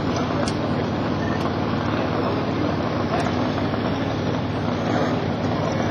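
An engine idling steadily at an even pitch, with wind noise on the microphone.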